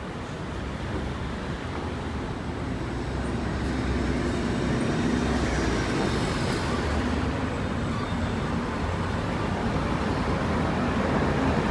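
City street traffic: cars and other motor vehicles running along an avenue, a steady rumble that grows gradually louder.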